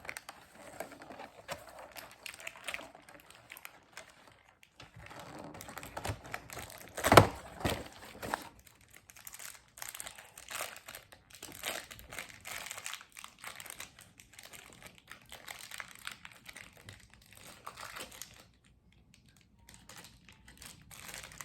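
Hands opening a toy package: plastic and cardboard crinkling, with many small clicks and taps. One loud knock comes about seven seconds in, and the handling goes quiet for a moment near the end.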